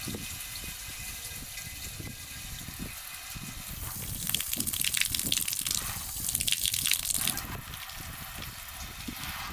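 Water spraying steadily from the handheld shower head of a portable propane water heater, the hiss of the spray growing louder for a few seconds in the middle.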